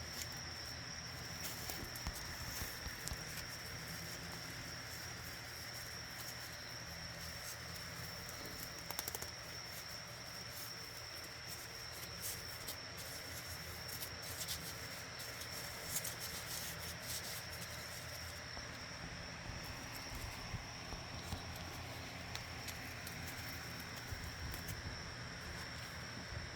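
A steady high-pitched insect trill over outdoor ambience, with scattered light clicks and knocks throughout.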